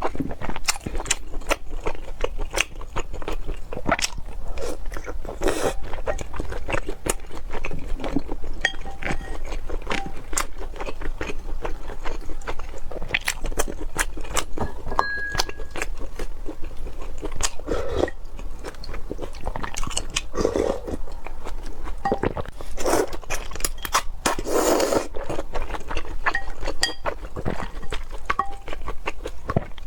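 A person eating into a close microphone: chewing and crunching, with many small sharp clicks and wet mouth sounds following one another all through.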